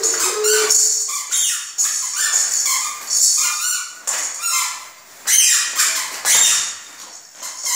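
A toddler squealing and shrieking in short, high-pitched bursts, over and over.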